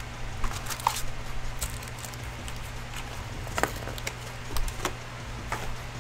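Foil trading-card packs crinkling and rustling as they are handled, in a few short scattered crackles, over a steady low hum.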